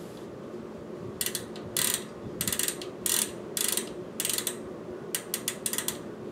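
Bicycle rear hub's freehub pawls ratcheting in a series of short, rapid bursts, about eight of them, as the freehub body is turned back and forth to line up a cassette cog's keyway.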